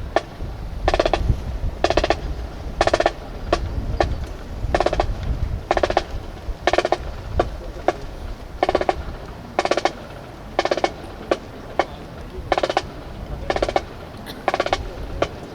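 Snare drum beating a slow marching cadence, roughly one stroke a second, each stroke a short rattling roll or flam.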